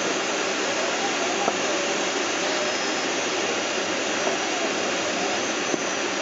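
Steady rushing hiss of air flowing past a glider's canopy, heard from inside the cockpit in flight. A faint tone wavers up and down in pitch beneath it.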